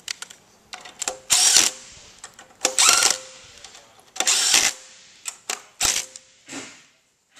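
Cordless power driver running in three short bursts of about half a second, then two shorter ones, spinning bolts on the scarifier's side plate. Sharp metal clicks of the socket and bolts fall between the bursts.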